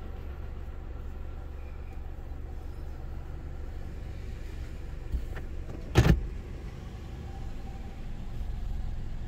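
Steady low engine rumble heard inside a car's cabin while it waits at a railroad crossing, with a sharp knock about six seconds in. A pickup truck passes close by near the end.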